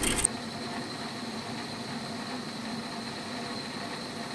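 Metal lathe running steadily: a constant hum with a faint high whine. A brief rattle at the very start cuts off abruptly.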